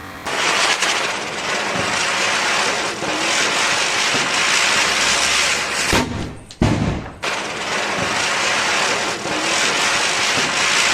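Diwali ground firecracker spraying sparks with a loud, steady hiss. A little past halfway the hiss breaks off for about a second with a sharp crack, then starts again.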